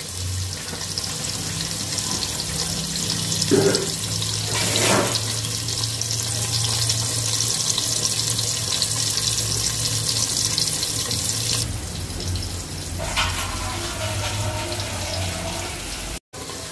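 Sliced onions, garlic and whole spices sizzling in hot oil in an aluminium pot, over a steady low hum. The sizzle cuts off about two-thirds of the way through, leaving the hum.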